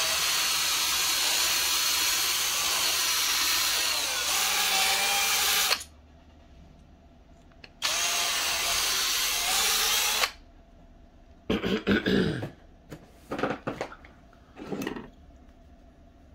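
Small electric drill running in two long bursts as it drills out the rivet holding a diecast toy car together, its pitch dipping briefly about four seconds in as the bit bites. A few short knocks and clatters follow near the end.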